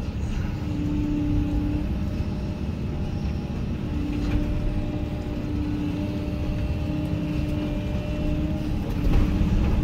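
Diesel engine of a Hyundai HX220AL excavator running steadily, a low rumble with a humming tone that comes and goes over it.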